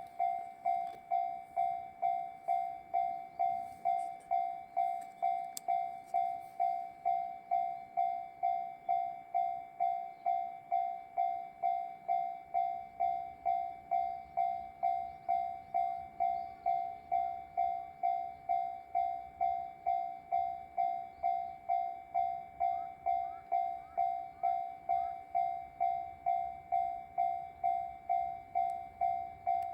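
Japanese railway level-crossing warning bell ringing, a steady electronic clang repeated evenly at a little under two strikes a second, warning that a train is approaching.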